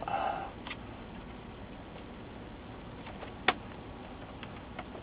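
Light clicks of a small cable connector being handled and pressed into its socket on a monitor's metal chassis, with one sharper click about three and a half seconds in.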